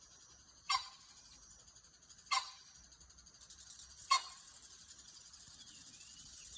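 Short, sharp animal calls, three of them evenly spaced about a second and a half apart, over a steady high hiss.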